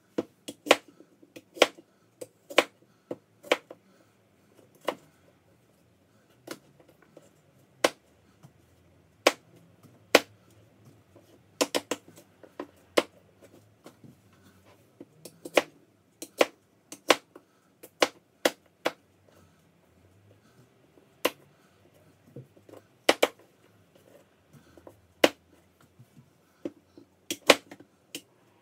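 Kitchen knife cutting apples on a cutting board: sharp, irregular knocks of the blade hitting the board, about one or two a second, sometimes several in quick succession.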